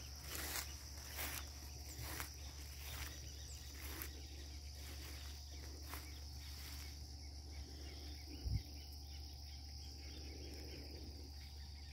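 Steady high-pitched insect chorus, with scattered clicks and rustles in the first few seconds and a single low thump about eight and a half seconds in.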